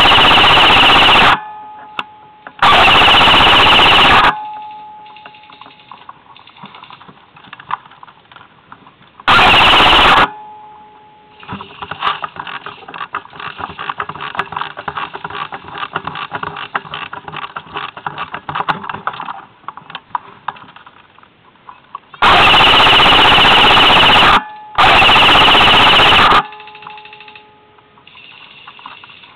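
Classic Army SPR airsoft electric gun firing five full-auto bursts, each one to two seconds long, loud and clipped. A quieter stretch of rapid clicking runs through the middle.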